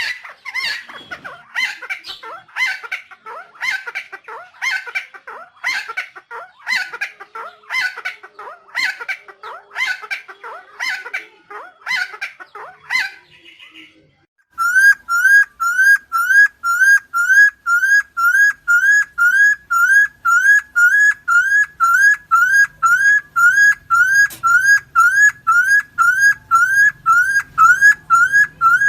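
Helmeted friarbird calling: a run of harsh, raspy calls about once every 0.7 s, stopping about halfway. After a short pause comes a fast, very even series of rising whistles, about two a second.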